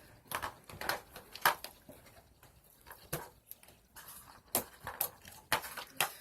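Fluffy slime being squeezed and stretched by hand, giving a string of irregular sticky clicks and pops.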